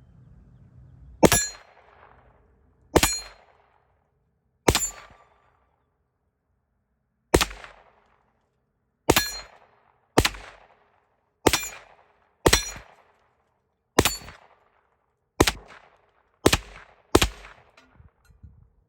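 Ruger 9mm carbine firing twelve shots at an irregular, unhurried pace, each a sharp crack with a short ringing tail.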